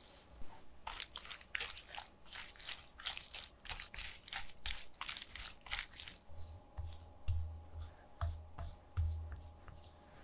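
Spatula tossing shredded raw cabbage coated in a creamy dressing in a glass baking dish: a quick run of crisp, wet rustling strokes. In the second half the strokes grow sparser and softer, with several low thumps, as the cabbage is pressed down and the surface spread even.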